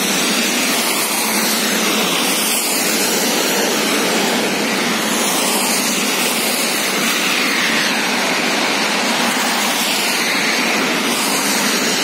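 Steady hiss of traffic on a wet road: tyres swishing through water as cars pass, with rain falling.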